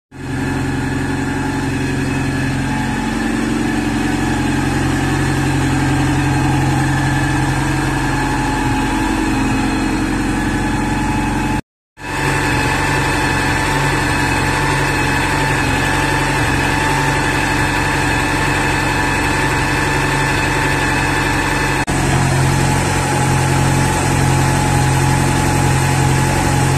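Porsche 944 engine idling steadily, recorded up close in the engine bay, across joined clips with a brief dropout near the middle. In the last few seconds it is an earlier recording with the balance shafts set 180° out, the cause of heavy engine vibration.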